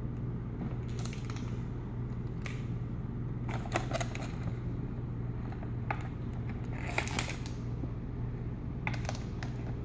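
Thin clear plastic blister packaging being handled and bent, giving irregular crinkles and clicks, the loudest about four and seven seconds in, over a steady low hum.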